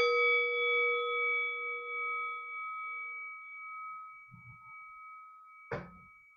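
Meditation bell struck once, ringing with several clear overtones and slowly fading away. A short soft knock sounds near the end.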